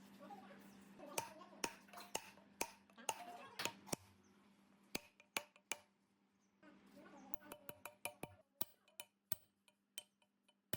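Irregular sharp clicks and taps of hand tools and small metal parts being handled, over a low steady hum, with a brief lull about halfway through.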